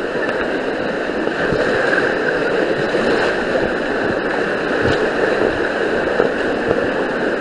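Rushing whitewater of a water-park rapids ride churning around an inflatable tube, a loud steady rush of water close to the microphone, with a few brief low bumps.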